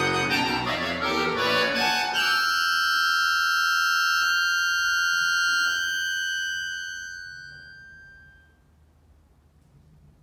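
Solo accordion playing dense, quickly changing chords, then holding a high chord of several tones about two seconds in that slowly dies away near the end.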